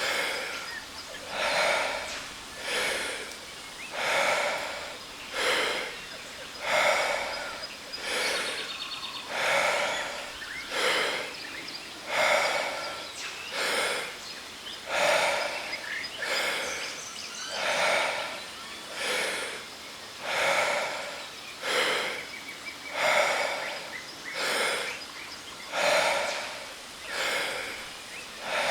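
A person doing Wim Hof power breathing: deep, forceful breaths in and out through the mouth, one after another about every one and a half seconds, over the steady rush of a waterfall.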